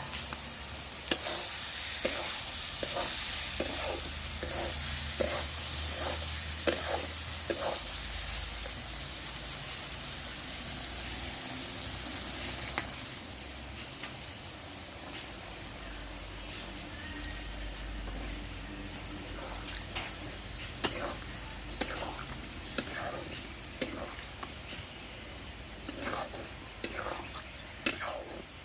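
Chicken masala sizzling as it fries in a pan, stirred with a spoon that clicks and scrapes against the pan now and then. The sizzle is loudest in the first several seconds.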